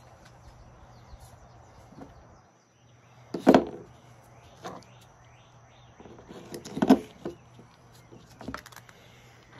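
Hand tools and small parts being picked up and set down on a workbench during carburetor reassembly: a few sharp knocks and clatters, the loudest a bit over three seconds in and again near seven seconds, with lighter clicks between.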